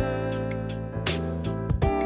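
Instrumental background music with sustained notes and frequent sharp note attacks.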